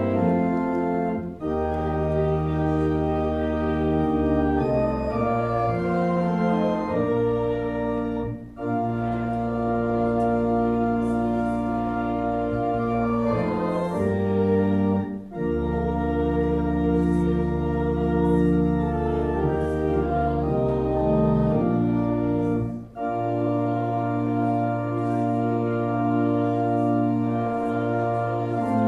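Church pipe organ playing slow, sustained chords over a deep pedal bass. The phrases are separated by short breaks about every seven seconds.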